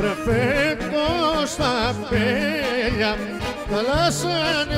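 Greek folk clarinet playing a richly ornamented melody, with wide vibrato, trills and quick bends, over steady low bass notes from the accompanying band.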